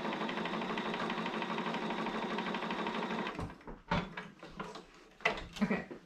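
Electric sewing machine stitching at a steady, fast rhythm, then stopping a little past halfway through. A few sharp clicks and knocks follow.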